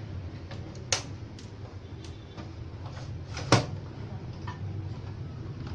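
A steady low hum with scattered faint clicks and two sharp knocks, one about a second in and a louder one about three and a half seconds in.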